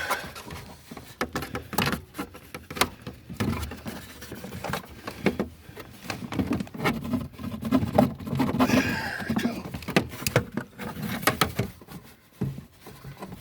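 Irregular clicks, knocks and rustling of parts being handled and fitted while a car's dashboard is put back together.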